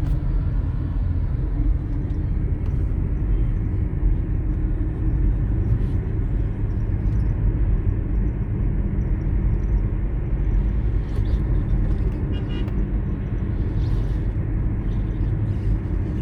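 Steady low rumble of a vehicle on the move: engine and road noise, without a break.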